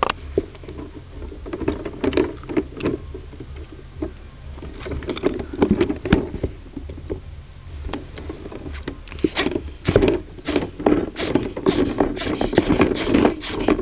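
A ferret moving about inside a storage case, making a quick run of short scratches, scrapes and clicks that grows denser and louder from about nine seconds in.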